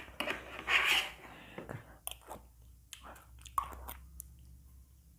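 A metal spoon scraping the last scraps of noodles from a plastic plate, with a loud rasp about a second in. Scattered small clicks and chewing follow as the spoon goes to the mouth.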